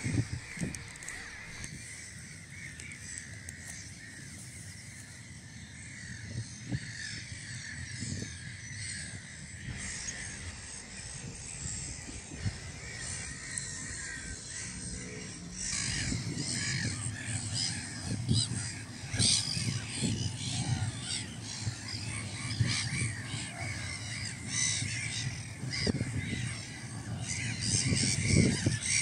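Many black-headed gulls calling at a breeding colony, short calls crowding over one another and growing busier about halfway through, when a low rumble also comes in underneath.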